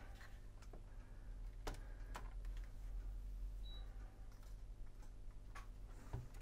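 Scattered light clicks and knocks of hands handling the plastic chassis and parts of a Sharp VZ-3000 vertical record player, over a steady low hum.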